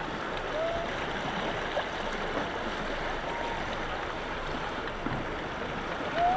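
River rapids running as a steady rushing churn of whitewater, with a couple of faint short calls.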